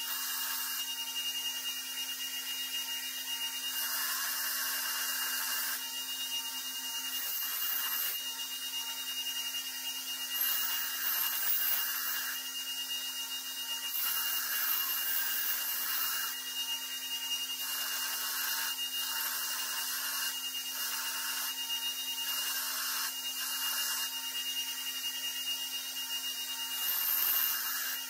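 Belt grinder running with a steady hum and high whine while a hand-forged steel axe head is pressed against the abrasive belt in repeated passes. Each pass is a harsh hissing grind of one to two seconds, about ten in all.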